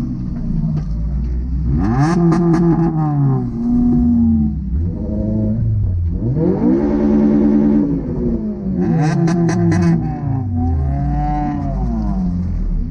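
Honda Civic Type R FN2's four-cylinder engine revved hard several times, the pitch rising sharply, holding briefly at high revs and falling back to idle, with smaller blips of the throttle in between.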